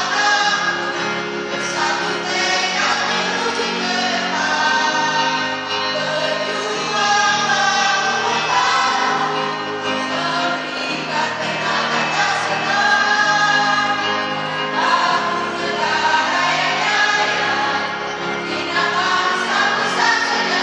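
Mixed choir of women and men singing together, holding sustained notes that change step by step without a break.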